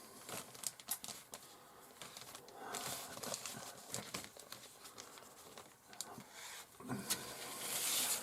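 Plastic model-kit sprues and their bags being handled: rustling with scattered light clicks and taps, with a louder rustle near the end.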